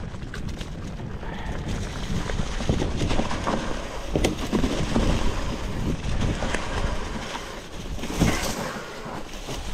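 Mountain-bike ride on a titanium hardtail: a steady rush of wind on the microphone mixed with the tyres rolling over dry, leaf-covered dirt and the bike rattling, with a few sharp knocks at about four, six and a half and eight seconds in.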